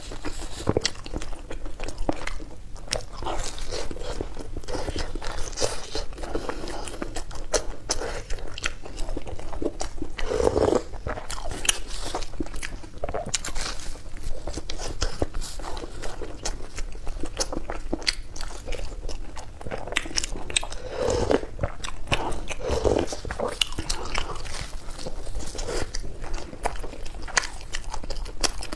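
Close-miked eating: biting into and chewing a pan-fried meat-filled pie (xianbing), a steady run of small crunches, clicks and wet mouth sounds.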